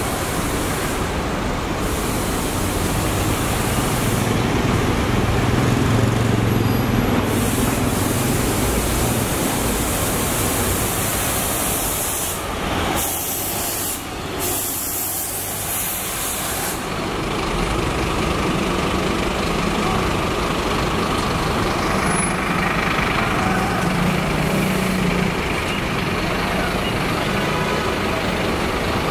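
City buses and a light truck driving slowly past one after another, a steady mix of engine hum and traffic noise that swells and fades as each vehicle passes.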